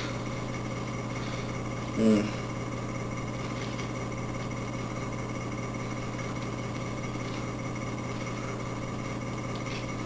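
Steady mechanical hum with a constant low drone and a faint high whine. About two seconds in comes one short voice sound.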